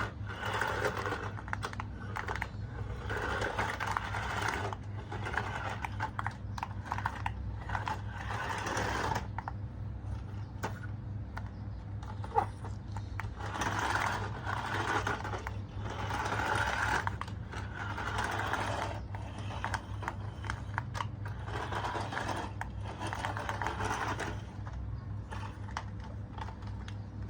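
Small electric motor whirring over a steady low hum, coming and going in spells about a second long, with scattered clicks and rattles.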